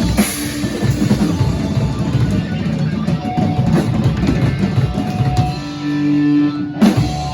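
A rock band, drum kit and electric guitar, playing loudly. The song ends on a final crashing hit about seven seconds in.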